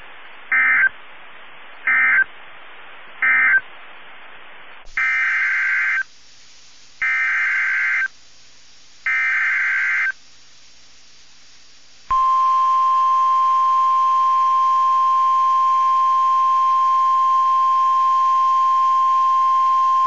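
NOAA Weather Radio alert signalling: three short, shrill data bursts over a light hiss, the SAME end-of-message code closing one warning. Then three longer SAME header bursts, about a second each, begin a new warning. After them comes the 1050 Hz weather-radio alert tone, one steady tone held about nine seconds.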